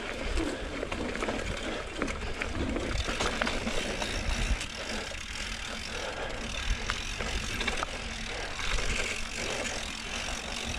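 Mountain bike being ridden along dirt singletrack: tyres rolling over the trail with a steady low rumble, and the chain and frame rattling and clicking over bumps.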